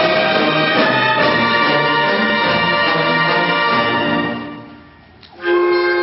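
Municipal concert band of brass and woodwinds playing. About four seconds in, the music dies away into a brief pause, then the band comes back in suddenly on a held chord.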